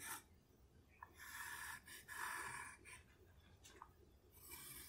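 Pencil lead scratching along a walnut blank while tracing around a rifle stock: three faint separate strokes with short pauses between them.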